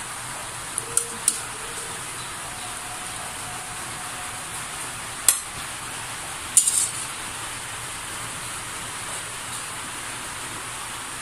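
Metal serving utensil clinking against a stainless steel wok and a ceramic bowl while soup and greens are served out: a couple of light clinks about a second in, a sharp one around five seconds and a short cluster just before seven seconds, over a steady hiss.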